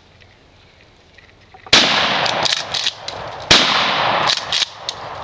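Two blasts from a Remington 870 pump-action 12-gauge shotgun, about 1.7 s and 3.5 s in, each ringing on for most of a second before dying away.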